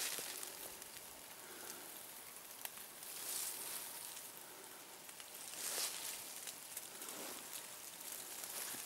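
Hikers' footsteps crunching on the mountain trail over a faint steady hiss, with louder crunches about three and six seconds in.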